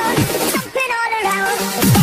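Electronic dance music: the kick-drum beat stops about a third of the way in, leaving a short break with a melody line, and comes back near the end.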